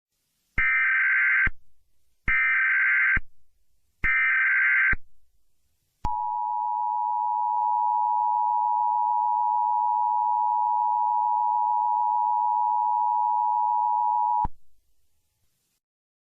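Emergency Alert System header: three short bursts of SAME data tones, then the steady two-tone EAS attention signal, held for about eight seconds before it cuts off.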